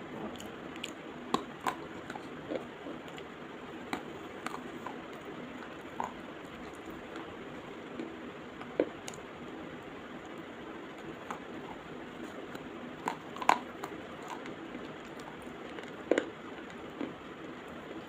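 Slate pencil being bitten and crunched close to a microphone: sharp, irregular crunching clicks every second or few, the loudest about two-thirds of the way through, over a steady hiss.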